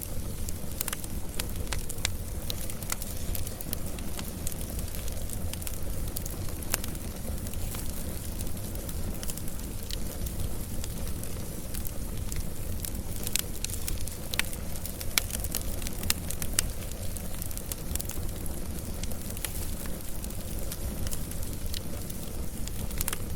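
Wood fire burning with a steady low rumble and frequent sharp crackles and pops scattered irregularly throughout.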